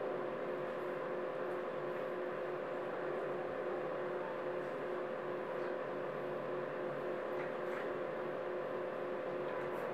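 Steady mechanical hum holding two unchanging tones over a faint even hiss.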